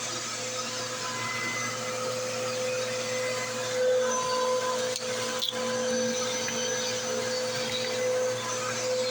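Bissell CleanView Rewind 3534 upright vacuum running steadily over carpet, a constant motor whine over the rush of suction, with one brief click about halfway through.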